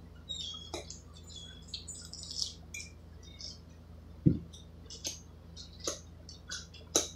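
Metal fork scraping and clicking against a stainless steel pot as spaghetti is twirled and lifted, in many short irregular clicks, with one louder dull thump about four seconds in. A steady low hum runs underneath.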